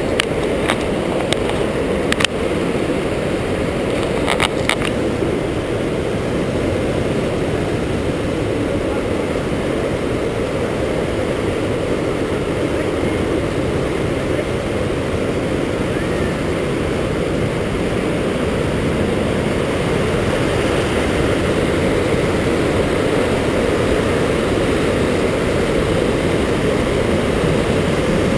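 Steady roar of rushing water at a waterfall, deep and unbroken, with a few sharp clicks or knocks in the first few seconds.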